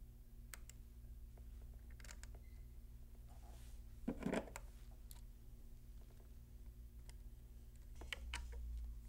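Faint clicks and taps of hands fitting the positive wire's terminal and bolt onto a small scooter battery, with one short, louder handling noise about four seconds in and a few more clicks near the end, over a low steady hum.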